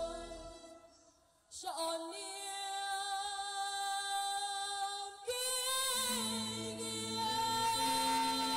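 Music dies away in the first second and a half, then a girl's solo voice comes in on a microphone, holding long notes with vibrato and almost no accompaniment. The backing track with its bass comes back in about six seconds in.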